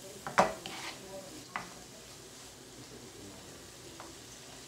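Chopped vegetables sizzling faintly in oil in a frying pan, with one sharp knock of kitchenware against the pan about half a second in and a few lighter clicks after it.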